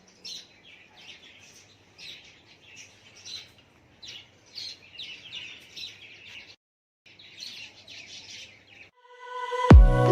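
Small birds chirping, many short high chirps overlapping. The sound cuts out completely for about half a second partway through. Music comes in loudly about a second before the end.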